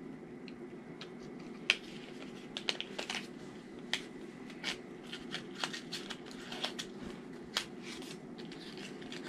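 Scissors snipping and picking at a small cardboard lipstick box to cut it open: scattered light clicks and crinkles over a faint steady hum.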